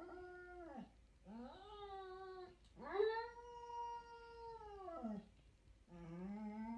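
A dog howling in drawn-out, sing-song calls: four howls, the longest lasting about two seconds in the middle, each one dropping in pitch as it ends.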